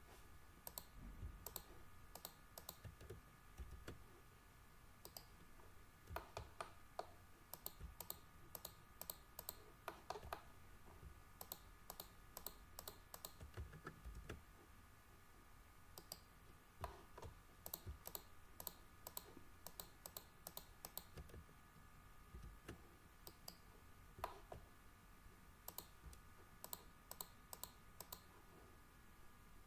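Quiet, sharp clicks of a computer mouse and keyboard, coming in irregular clusters as vertices are selected and moved. A faint steady high hum runs underneath.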